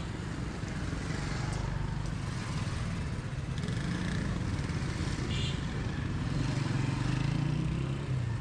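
Busy market street traffic: motorcycle engines running and passing, one loudest near the end.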